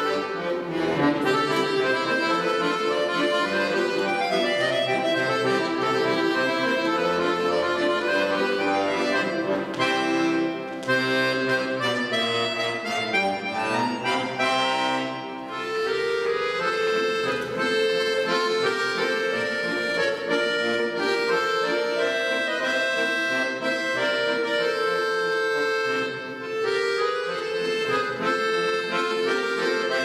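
Scandalli piano accordion played solo: a melody moving over low bass notes, with three brief dips between phrases.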